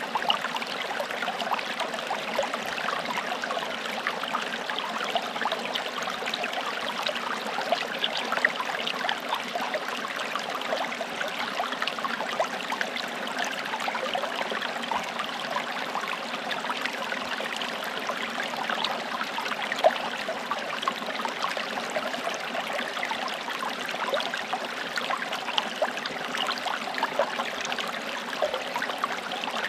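Small forest stream running over stones: a steady rush of water with many quick trickles and splashes.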